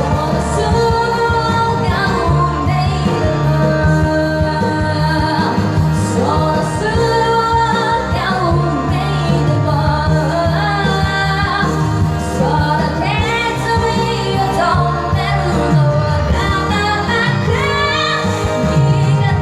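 A person singing loudly into a karaoke microphone over a noraebang backing track, the voice gliding between held notes.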